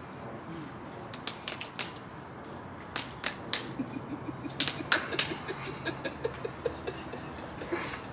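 Sharp hand slaps and claps in an uneven string: a few about a second in, then more in loose clusters from about three seconds in.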